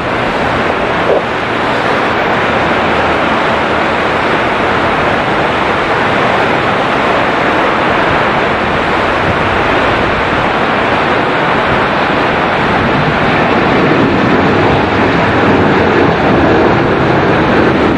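Boeing 737-800 jet engines on final approach, a steady rushing noise that grows a little louder toward the end as the airliner nears the runway.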